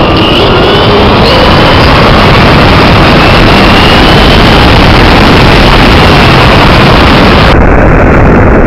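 RC truck driven by a Castle Mamba Monster Max brushless motor, heard from a camera riding on the truck: a loud, steady rush of drivetrain and tyre noise, with a faint high motor whine rising and falling as the throttle changes.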